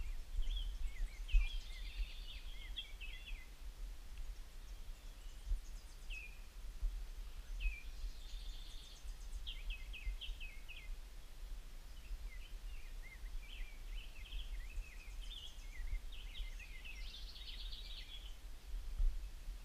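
Small songbirds singing and calling: short chirps and quick trills come again and again, over a low steady rumble.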